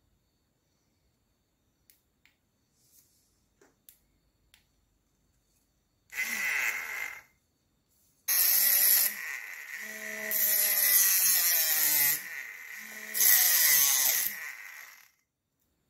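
Small electric motor of a homemade rechargeable mini grinder spinning a thin cutting disc. It whirs in a short burst about six seconds in, then runs for about seven seconds with a high whine whose pitch wavers, dipping in level a few times. A few faint clicks come before it.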